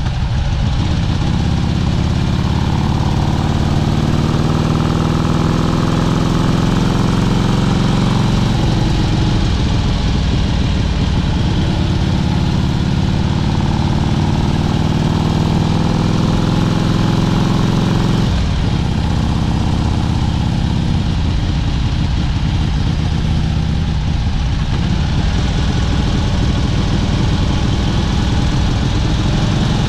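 1971 Harley-Davidson XLH Sportster's air-cooled V-twin engine running under way, now on a modern CV carburetor and running smoothly. Its pitch climbs and eases with the throttle, dropping suddenly a little past the middle before rising again.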